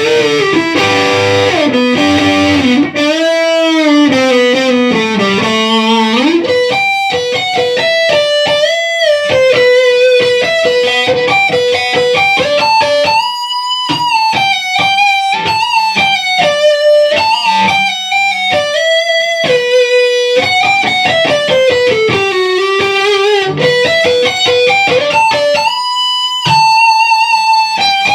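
Electric guitar played through a Laney IRT15H valve amp head and IRT-112 1x12 cabinet. It opens with a few seconds of chords and riffing, about six seconds in it turns to a single-note lead melody, and the lead has held notes, string bends and wide vibrato.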